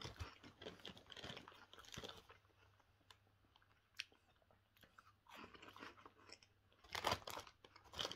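Faint crunching and chewing of Cheetos peanut-flavour corn puffs, heard close to the mouth in short spells, with a louder burst of sound about seven seconds in.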